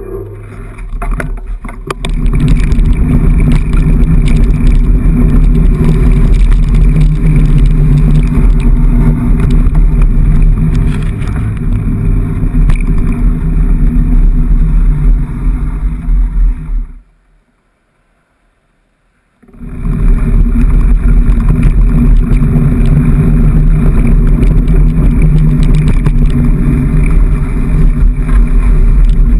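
Mountain bike being ridden, heard through a handlebar-mounted camera: a loud, steady low rumble of tyres on the path and wind on the microphone, with some rattling. About two-thirds of the way through the sound cuts out completely for two or three seconds, then resumes.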